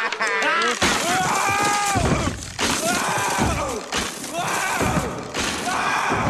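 Cartoon sound effects of a man crashing through a wooden floor: a crash of breaking, then about four pained yells, each with a heavy thud, as he hits things on the way down.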